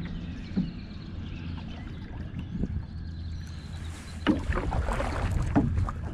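Paddle strokes on an Old Town Penobscot 164 canoe: the paddle splashes in the water and there are occasional knocks, with a flurry of splashes and knocks from about four seconds in. Wind rumbles steadily on the microphone underneath.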